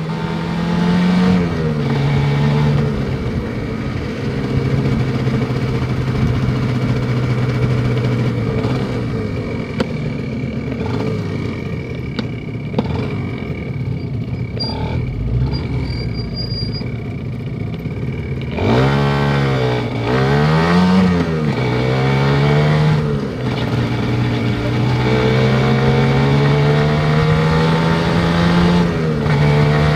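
Kawasaki Ninja 150 RR's two-stroke single-cylinder engine running while the bike is ridden. The engine note holds fairly steady, dips and climbs sharply about two-thirds of the way through, then climbs slowly near the end, with a rush of noise underneath.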